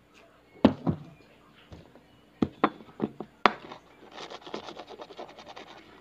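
A ceramic coffee mug set down on a table with two sharp knocks a little under a second in, followed by several lighter knocks and then a couple of seconds of faint, rapid scratching and rubbing.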